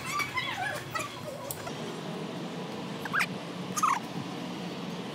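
A toddler's high-pitched squeals and giggles trailing off in the first second, then two short squeals about three and four seconds in.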